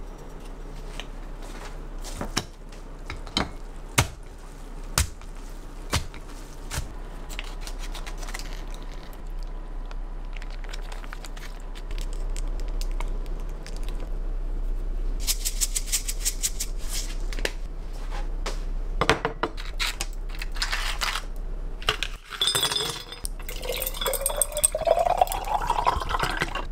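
Kitchen work: dishes and utensils clicking and knocking, then liquid poured into a container near the end, its pitch rising as it fills.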